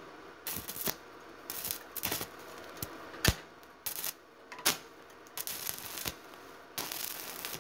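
Scattered light metallic clicks, taps and clinks, with a few short scraping rustles, from tools and metal being handled on a water-heater tank being made into a stove. One sharper knock stands out about three seconds in.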